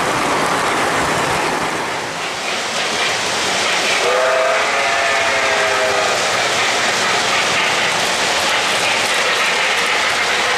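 O-gauge three-rail model trains running, their wheels making a steady rolling rumble and clatter on the metal track. About four seconds in, a locomotive sound system gives a chime steam-whistle blast lasting about two seconds.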